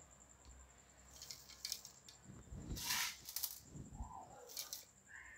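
Roasted dals and rice being poured into a steel mixer-grinder jar, the grains rattling and pattering against the steel in three short bursts, the middle one loudest.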